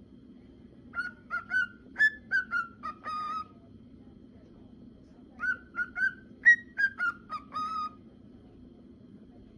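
Male cockatiel whistling its song: two quick phrases of short, bright whistled notes that step up and down in pitch, each ending on a slightly longer held note.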